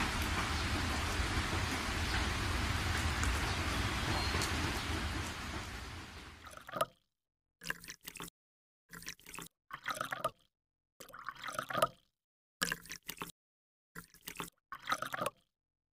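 Steady rain, fading out about six seconds in. After that come about seven short, separate sound bursts with gaps of silence between them.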